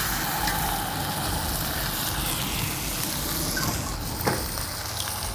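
Thick tomahawk ribeye steak searing in butter in a hot cast iron skillet: a steady, even sizzle. A single sharp click of metal tongs about four seconds in.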